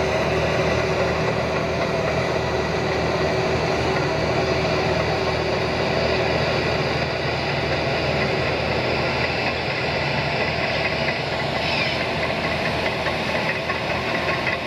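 Liebherr PR745 bulldozer's diesel engine running steadily, with a fast rattle joining in near the end.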